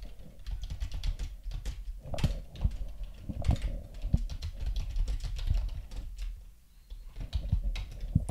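Typing on a computer keyboard: individual key clicks at an uneven pace, with a brief pause about two-thirds of the way through.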